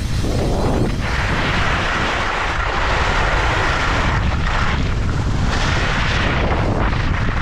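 Wind buffeting an action camera's microphone at skiing speed, a continuous loud rumble with a hiss of skis running over the snow on top.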